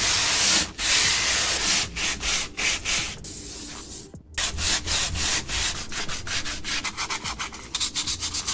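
220-grit sandpaper on a hand sanding block rubbing back and forth over dried wood filler on a 3D-printed plastic sword blade, smoothing out the print's layer lines. Long, even strokes at first; after a brief pause about four seconds in, the strokes come quicker and shorter.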